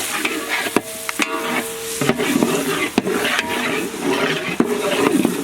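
Whole spices sizzling and crackling in hot oil and butter in a pan, stirred with a spoon that knocks against the pan a few times.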